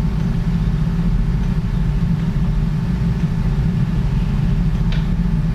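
A steady low hum, with a faint short click near the end.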